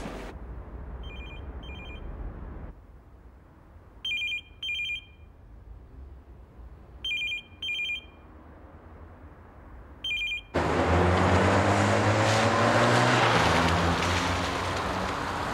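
A telephone rings in the British double-ring pattern, 'ring-ring' every three seconds. The first pair is faint, the later pairs louder, and the last ring is cut off short about ten seconds in. A loud car engine accelerating then takes over.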